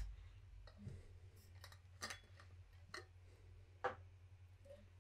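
A few faint, separate clicks, about one a second, from operating a computer, over near-silent room tone with a low steady hum.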